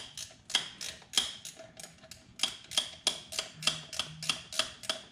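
Ratcheting wrench clicking about three times a second as it is swung back and forth to loosen a throttle cable bracket bolt.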